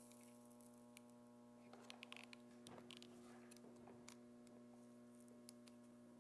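Near silence: a faint steady electrical hum, with a few faint small ticks clustered about two to three seconds in.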